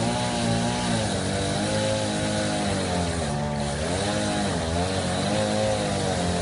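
Two-stroke chainsaw running under load. Its engine pitch repeatedly sags and recovers as the chain bites into the wood, with the deepest dip about halfway through.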